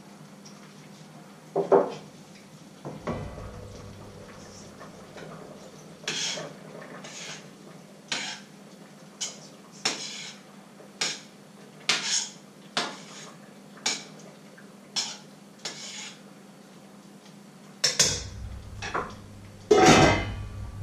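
A metal utensil working in a cooking pot on the stove: a sharp knock about two seconds in, then short strokes about once a second, and louder clattering of pot and lid near the end.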